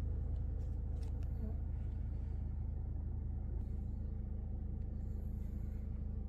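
A steady low drone, even in loudness throughout, with no clear breathing rhythm.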